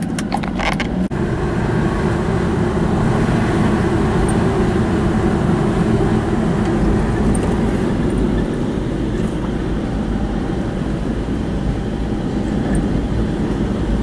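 Car being driven along a road, heard from inside the cabin: a steady hum of engine and tyre noise.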